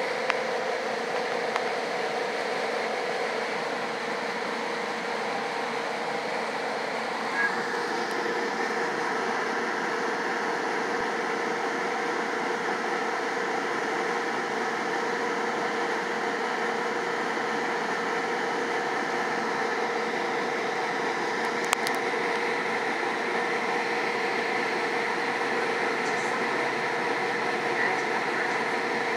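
Steady interior noise of a SunRail commuter train passenger car: a constant hum with a steady tone through it, and a few light clicks.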